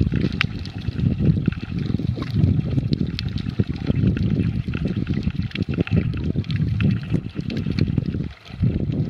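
Underwater sound as picked up by a submerged camera: a dense, low rumble of moving water with many scattered sharp clicks and crackles. The rumble drops out for a moment near the end.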